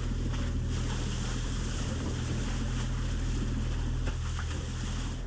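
Wind buffeting the microphone and the sea rushing past a sailing catamaran under way: a steady, even rush over a low rumble.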